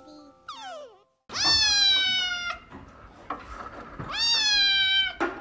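Grey-and-white kitten meowing loudly twice, two long drawn-out meows, each rising sharply at the start and then held for about a second.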